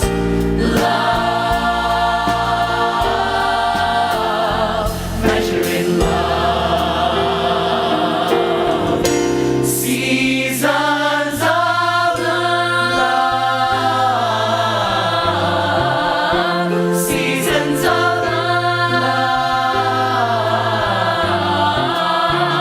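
A musical-theatre ensemble singing together in chorus over instrumental accompaniment.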